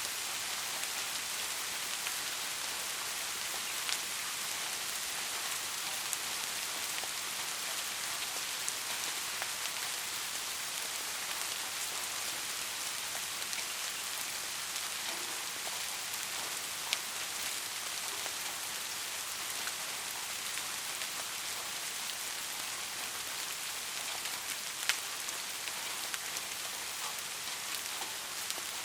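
Steady rain falling, an even hiss with scattered louder drop ticks, a few standing out sharply.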